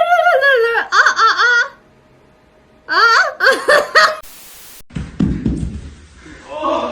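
High-pitched laughter in two bouts, the second about three seconds in, followed by a brief hiss and then a jumble of lower noise.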